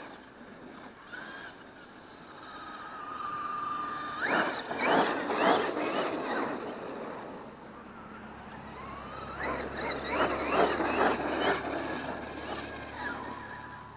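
Electric drive of a Traxxas X-Maxx RC monster truck on a Hobbywing MAX6 ESC, whining steadily, then in two loud spells of repeated throttle punches with the whine rising quickly in pitch each time.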